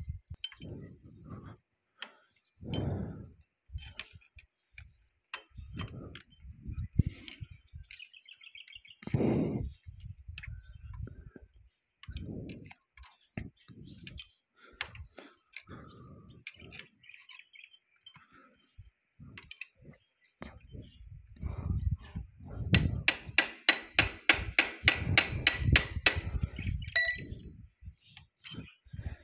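Metal tools working on a seized parking brake cable lock at the brake, being broken to free the cable: scattered clanks and knocks, then a quick run of sharp ringing metallic taps, about five a second, a little past two-thirds of the way through.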